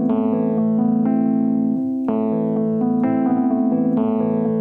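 Digital piano playing a rolling two-hand broken-chord pattern, left-hand and right-hand notes alternating in a repeating figure over held notes. The chord changes about two seconds in.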